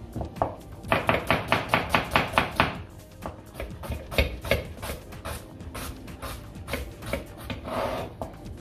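Kitchen knife dicing onion on a plastic cutting board. A quick run of about five chops a second near the start is followed by slower, scattered cuts.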